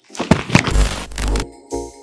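A loud, noisy rushing burst with a deep rumble and a couple of sharp cracks, lasting about a second and a half. Near the end, intro music starts with short pulsing chords about two and a half times a second.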